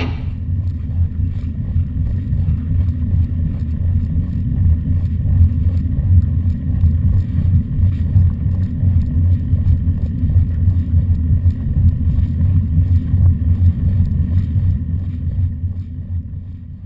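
Steady low wind rumble buffeting a moving camera's microphone, with faint ticks, fading out near the end.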